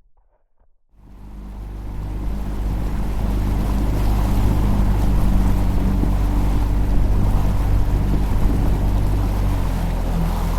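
Boat under way: a steady rush of wind and water over a low, even hum. It starts abruptly about a second in, after near silence.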